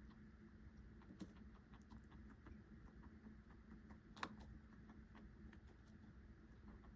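Faint, irregular soft clicks from a small pet clucking contentedly as it chews, with one sharper click about four seconds in, over a steady low hum.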